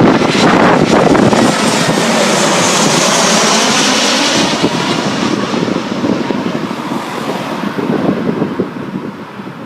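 Jet airliner passing close on its landing approach, its engine noise with a high hiss loud at first and then fading away over the last few seconds.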